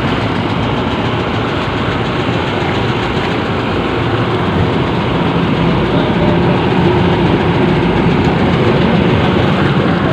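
A fishing boat's engine running steadily, a loud, dense noise that holds without a break.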